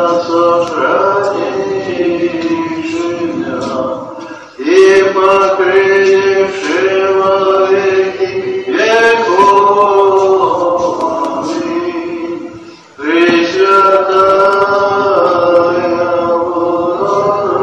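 A man singing Orthodox church chant: long phrases of held notes that step from one pitch to the next, with two short pauses about four and thirteen seconds in.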